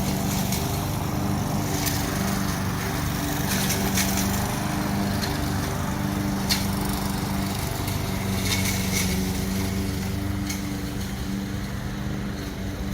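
Lawn mower running steadily while mowing, with a few sharp ticks over the hum.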